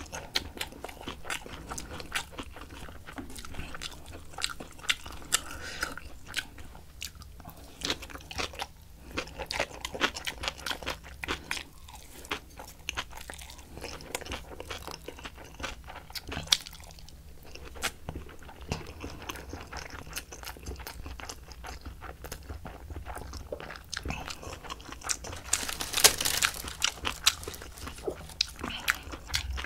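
Close-miked chewing of rice and spicy kimchi: a steady run of small wet clicks and crunches. Near the end comes a louder, crisp crackle as dry roasted seaweed sheets are handled.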